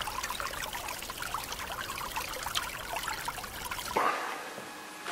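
Water trickling steadily, with many small irregular plops. It stops suddenly about four seconds in, leaving quiet room tone.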